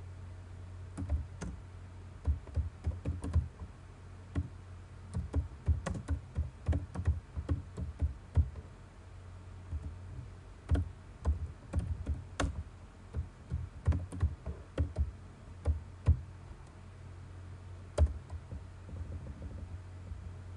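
Typing on a computer keyboard: irregular runs of keystrokes with short pauses, over a steady low hum.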